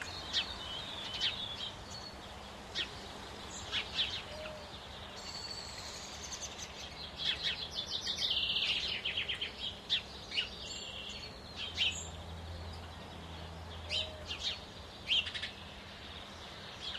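Birds chirping over a steady outdoor background hush. Short high chirps and trills come every second or so, with a quick run of rapid chirps about seven to nine seconds in.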